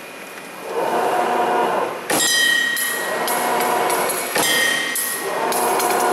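MC-100 wire-forming machine running through its forming cycle: a whir builds as the wire is fed and bent, then comes a sharp metallic clack with a high ringing about two seconds in. A few more clacks follow from about four and a half seconds on as the next part is formed.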